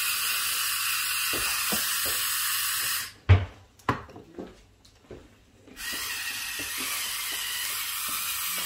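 Electric salt and pepper mills grinding over a bowl of beaten eggs: a steady hiss for about three seconds, a few knocks as one mill is set down and the other picked up, then steady grinding again from just before the six-second mark.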